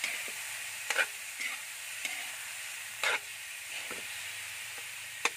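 Sliced bamboo shoots sizzling in oil in a wok while a spatula stirs them, with a steady hiss and a few sharp scrapes and knocks of the spatula against the pan.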